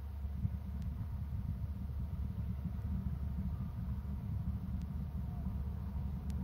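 Steady low rumble with no clear source, with a few faint clicks about a second in and near the end.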